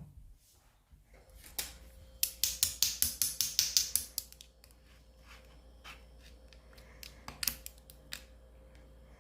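Clear slime being squished and pressed by hand, making a fast run of wet clicks and pops for about two seconds, then scattered clicks.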